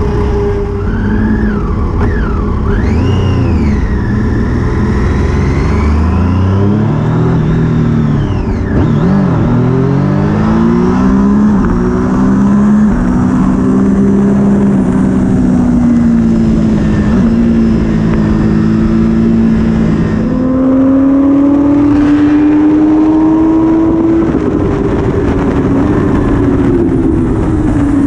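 Triumph Daytona 675R's three-cylinder engine heard from a camera mounted on the bike: the revs rise and fall repeatedly through the gears for the first several seconds, then hold high and fairly steady at speed, climbing further about two-thirds of the way through and easing near the end. Wind rush runs under the engine note.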